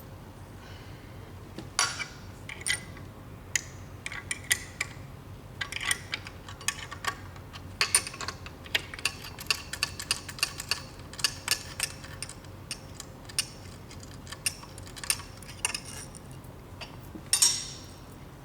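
Hand tools clicking and clinking on metal as the bolts holding the machine's hopper are undone: many short, irregular metallic clicks, with a louder clatter near the end.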